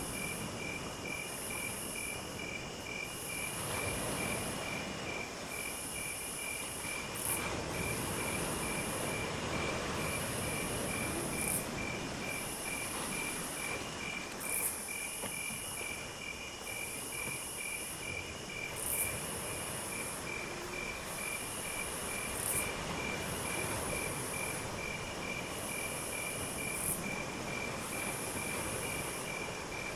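Insects chirping: a steady, even chirp at about four pulses a second, with a higher buzzing that comes in phrases of a second or so separated by short breaks, over a soft steady background rush.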